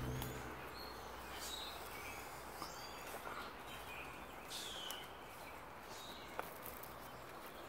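Quiet outdoor ambience: a faint steady hiss with a few scattered bird chirps, and one soft click about two-thirds of the way through.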